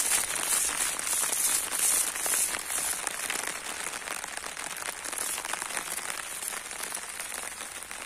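Steady rain drumming on an open umbrella held just overhead: a dense spray of fine drop hits, a little heavier in the first few seconds and then easing slightly.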